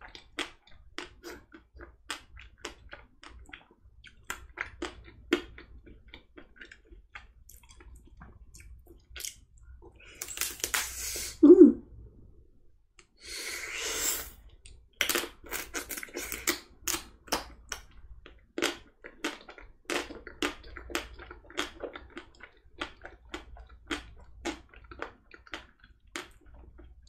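Close-miked eating of a Magnum chocolate-coated ice cream bar: the thin chocolate shell cracks and is chewed with many small crackles, and there are two longer, louder wet bites about halfway through.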